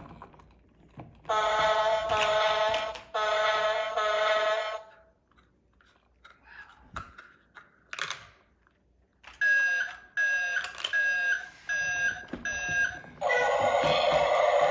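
Electronic sound effects from a battery-powered toy construction truck: two long buzzy tones, then five short beeps like a reversing alarm, then another loud, noisier effect near the end.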